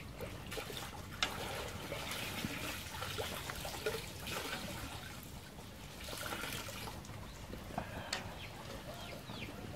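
Water bubbling at a boil in a pot of blanching greens, with a few sharp clicks along the way and a few faint, short, high falling chirps near the end.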